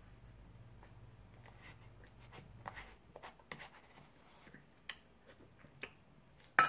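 Metal spoon scraping and scooping ice cream in a tub: a run of faint scrapes and small clicks, with a sharper click near the end.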